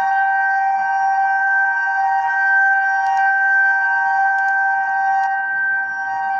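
Reverse-wired FuryBolt 1003A fire siren sounding for a fire-signal test, holding one steady, unwavering chord of tones at full speed. A few faint clicks sit under it.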